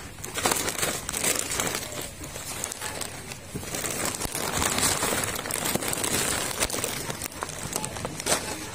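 Thin clear plastic grocery bags crinkling and rustling close to the microphone as groceries are handled, with many small crackles and clicks.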